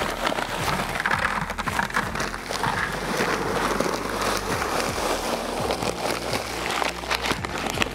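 Dry Quikrete concrete mix pouring from its paper bag into a plastic 5-gallon bucket: a steady gritty rush of sand and gravel, with many small crackles.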